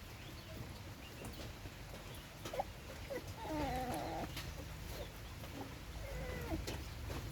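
An animal's wavering cry about halfway through, with a shorter one near the end, over scattered light clicks.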